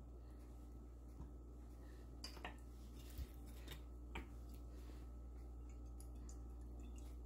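Quiet kitchen room tone: a steady low hum with a few faint clicks and taps, about a second in and several more between two and four seconds in.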